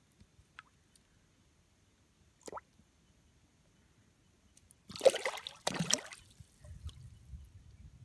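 Two short splashes at the water's surface about five and six seconds in, as bream snatch at bait held just above the water.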